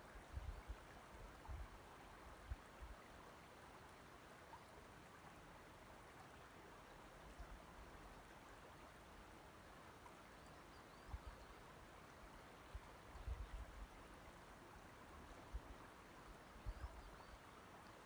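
Faint, steady lapping and trickling of shallow loch water over the pebbles at the shoreline. Short low rumbles of wind on the microphone come and go every few seconds.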